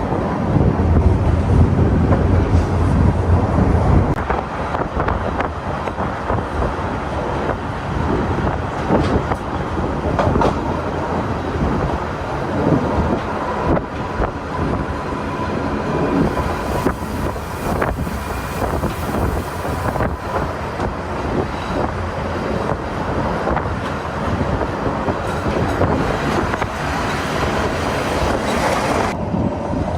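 Train running steadily, wheels clicking and clacking over the track.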